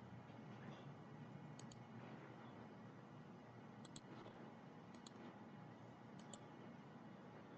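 Computer mouse clicking, four quick double clicks spread over several seconds, over a faint steady hiss.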